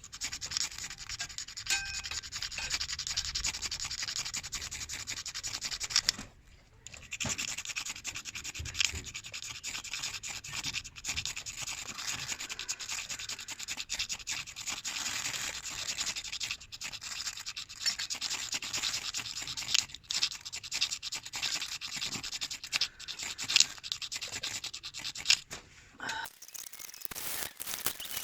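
Ferrocerium rod fire starter being scraped with its striker over and over in quick rasping strokes, trying to throw sparks into tinder, with a short pause about six seconds in.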